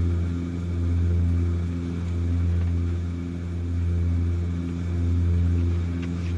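Steady low drone of an Ilyushin Il-18's four Ivchenko AI-20 turboprop engines heard inside the passenger cabin in flight, swelling and fading in a slow regular pulse about every one and a half seconds.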